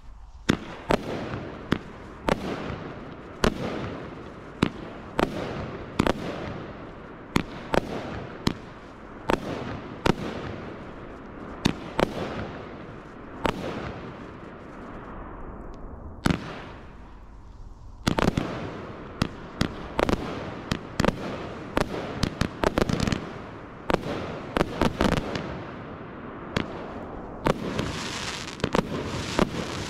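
Pyroworx Rapture 80-shot 25 mm barrage cake firing, a run of sharp shots about one or two a second, each with the hiss and crackle of rising tails and bursting stars. There is a brief lull a little past halfway, then dense firing, and toward the end a continuous high crackling hiss.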